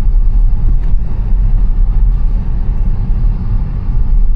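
Steady low rumble of a Tesla's tyres churning over snow, heard from inside the car, with no engine note.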